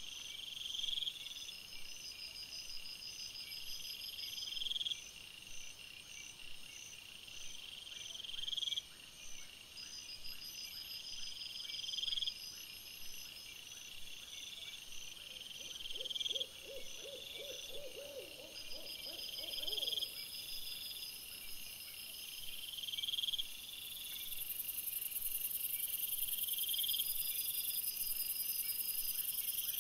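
Night-time woodland chorus of calling insects: a high trill that swells and cuts off about every three and a half seconds over steady high chirping, with a lower, rapid pulsed call about halfway through.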